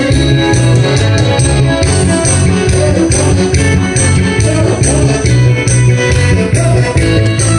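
Korean trot music played loud through PA loudspeakers, with a steady driving beat over a bass line.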